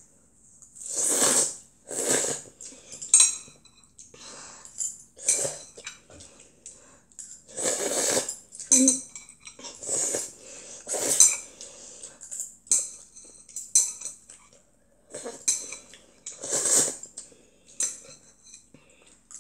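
A child slurping jjamppong noodles from a bowl in repeated slurps a second or two apart, with metal chopsticks clinking against the ceramic bowl.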